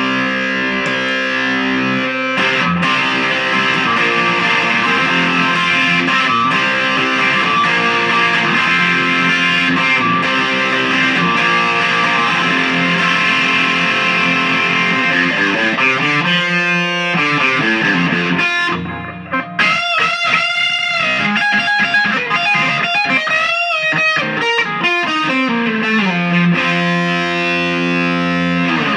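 Les Paul-style electric guitar with Seymour Duncan '59 pickups played through a Lawrence Petross Design Saguaro drive pedal into a Marshall MOSFET Lead 100 head and a 1x12 Celestion speaker: a distorted tone, held chords for the first half, then single-note lead lines with string bends and vibrato, ending in a descending run.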